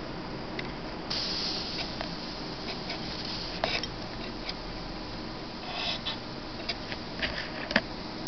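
Flyback-driven high-voltage plasma discharge in an evacuated glass vessel: a steady hum and hiss with scattered sharp crackles, which come more often near the end. The hiss grows louder from about a second in until nearly four seconds.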